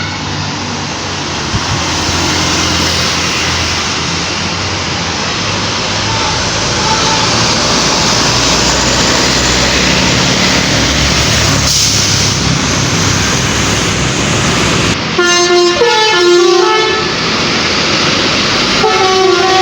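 Loud, steady vehicle noise with a low engine hum. About fifteen seconds in, it gives way suddenly to a tour bus's telolet basuri musical horn (DAV module) playing a stepped multi-note tune. A second phrase of the tune starts near the end.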